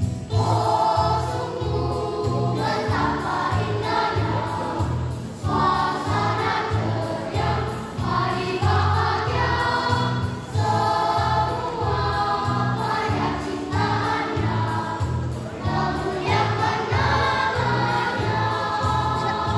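Sunday school children's choir singing a church song over a recorded accompaniment with a steady bass beat; the voices come in just after the start, with short breaks between phrases.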